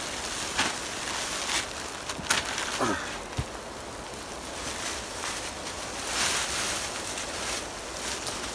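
Clear plastic sheeting crinkling and rustling as a person crawls out from under it and lifts it off a tarp shelter, with a few sharp crackles.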